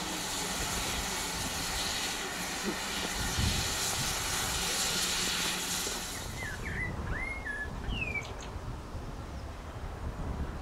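Steady steam hiss from a standing GWR Small Prairie steam locomotive, which stops about six seconds in. A few short bird chirps follow.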